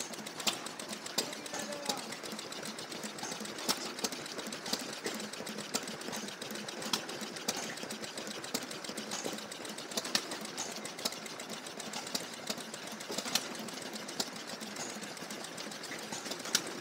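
1916 Lister Model H stationary engine of a Bruston lighting plant running, a rapid mechanical clatter broken by sharper cracks at uneven intervals.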